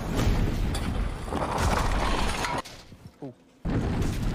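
Loud rushing rumble of a hot rod hurtling down a steep slope, engine and wind noise together. It cuts out abruptly about two and a half seconds in and comes back at full level a second later.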